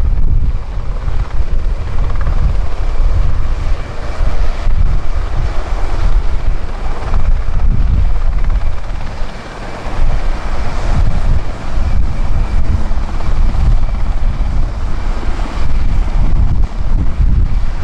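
Aérospatiale SA330 Puma helicopter hovering low and close: loud, continuous rotor beat with a faint steady high whine from its twin turboshaft engines.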